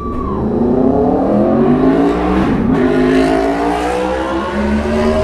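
Aprilia Tuono sport bike's engine revving loudly through an exhaust that has been cut open with the packing removed, so it runs almost like a straight pipe. The pitch climbs steadily, dips briefly about halfway, then climbs again and holds.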